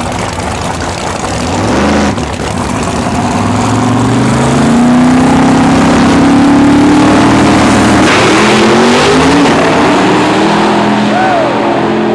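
Drag-racing Ford Mustang's engine revving loudly at the starting line, then launching down the strip, its pitch climbing as it pulls away.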